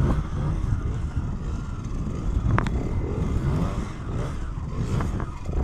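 Yamaha DTR 125 two-stroke single-cylinder dirt bike engine revving up and down as the throttle is worked through a stunt. Two brief high squeaks come in, about halfway and near the end.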